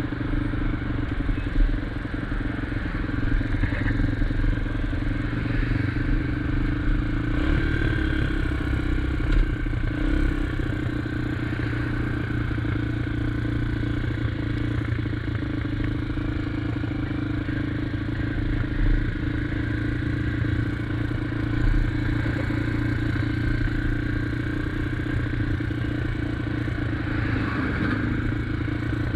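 SSR XF250 dual-sport motorcycle engine running steadily while being ridden, with road and wind noise and a few brief knocks.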